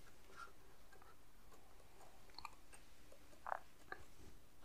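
Quiet room tone with a few faint, short clicks, the clearest one about three and a half seconds in.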